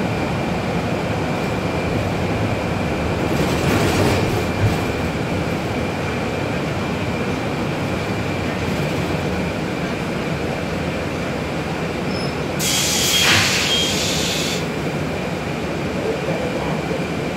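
Steady engine and road rumble inside a city transit bus, with a faint steady high whine. About thirteen seconds in, a two-second hiss of air.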